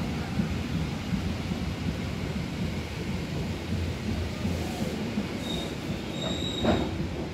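Lokal Merak locomotive-hauled economy train running on the rails with a steady low rumble. A thin, high wheel squeal sets in about five and a half seconds in, and a brief louder knock follows about a second later.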